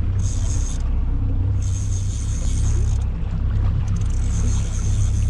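A boat's motor running steadily, a continuous low hum, with a high hiss that comes and goes over it.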